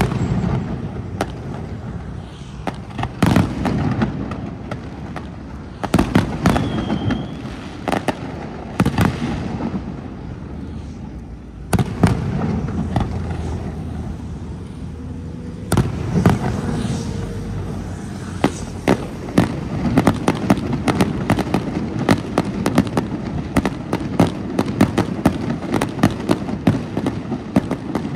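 Aerial firework shells bursting in a display: a series of loud booms, each followed by a low rumble. From about two-thirds of the way through, a dense run of rapid crackling pops takes over.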